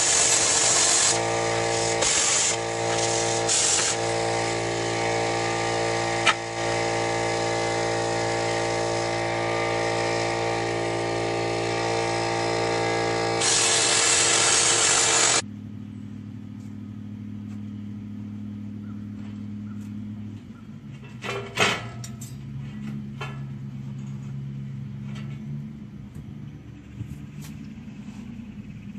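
Cutting torch hissing loudly as it cuts quarter-inch steel plate, over a steady motor hum. The loud hiss breaks off about a second in, returns for a couple of seconds around the middle, then the sound drops suddenly to a quieter steady hum with a few clicks.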